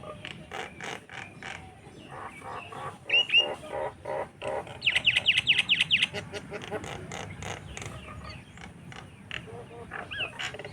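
A group of birds calling together in a dense mix of harsh, rapid chattering notes. About five seconds in comes a fast run of high whistled notes, each sweeping downward.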